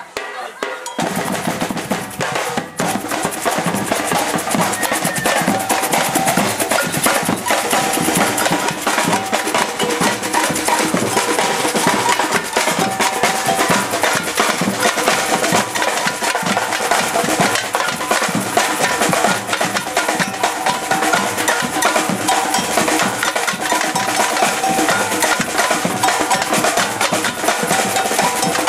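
A Brazilian-style batucada percussion troupe playing a fast, steady drum rhythm, with deep drum strokes under dense snare-like strikes and rolls. It comes in about a second in.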